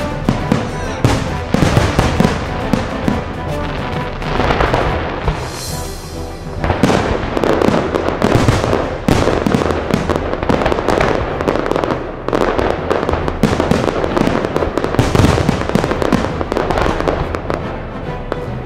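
Fireworks show: a dense, continuous run of aerial shell bangs and crackling, with music playing underneath.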